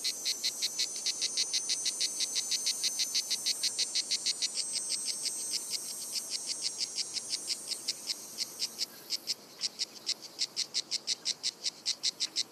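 Cicada singing: a rapid, even train of high buzzing pulses, which become sharper and more clearly separated in the last few seconds.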